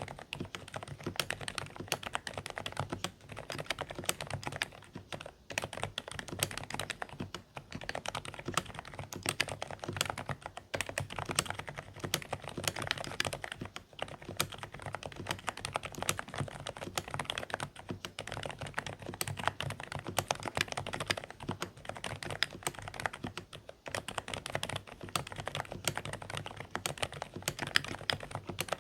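Continuous typing on a Dareu A104 Pro mechanical keyboard with silent beige switches: quite quiet, slightly muffled keystrokes in quick runs, broken by brief pauses every few seconds.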